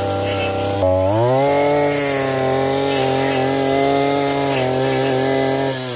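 Backpack two-stroke brush cutter engine revving up about a second in and holding at high speed as the blade cuts through tall grass, then starting to slow near the end.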